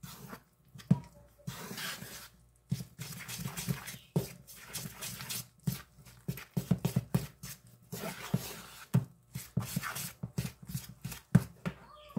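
Metal spoon stirring and scraping a thick flour-and-egg batter in a bowl, with quick, irregular knocks of the spoon against the bowl's sides.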